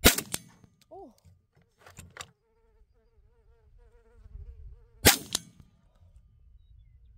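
Two shots from a Beretta 1301 Tactical 12-gauge semi-automatic shotgun, about five seconds apart, each followed a moment later by a fainter second crack. A fly buzzes between the shots.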